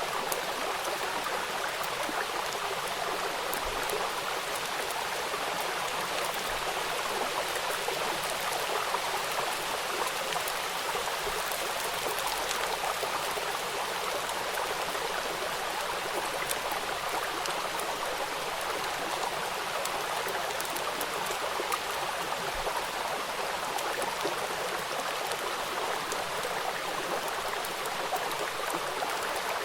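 Rain falling on a river: a steady hiss of water, dotted with many small drop splashes.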